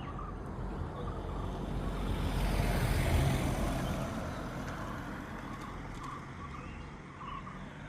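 A passing vehicle, its sound swelling to a peak about three seconds in and then fading.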